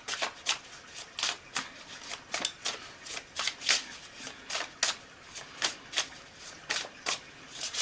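Tarot cards being shuffled by hand: a run of quick, irregular card snaps and flicks, a few each second.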